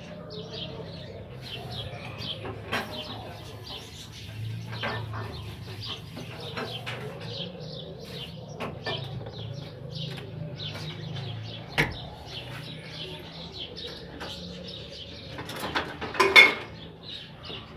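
Small birds chirping over and over, with a low steady rumble underneath. A sharp click comes about twelve seconds in, and a louder brief clatter comes near the end.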